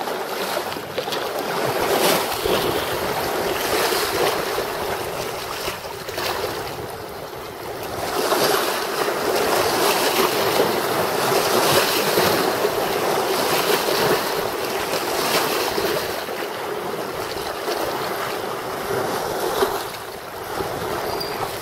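Choppy lake waves washing in against the shore with wind on the microphone, a rushing noise that swells and eases every few seconds.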